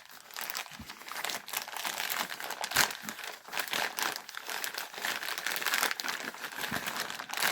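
Packaging crinkling and rustling in irregular crackly bursts as a postal package is opened by hand, with some light tearing.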